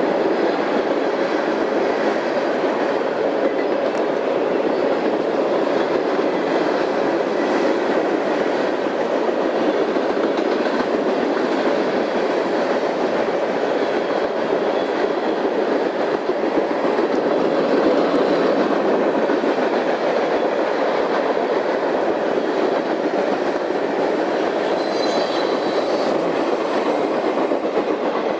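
Freight train cars rolling steadily past on the rails, with an even, unbroken rolling noise from the wheels.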